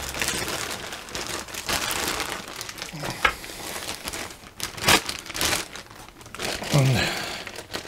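Plastic bag crinkling and rustling as it is handled, with scattered sharp crackles.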